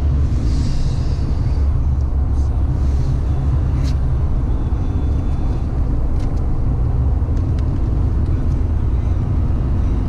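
Steady low rumble of a car driving on a snow-covered road, heard from inside the cabin: engine and tyre noise, with a few faint ticks.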